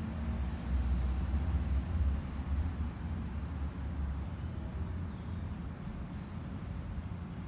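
Outdoor background ambience: a low, uneven rumble, with a few faint, short high chirps.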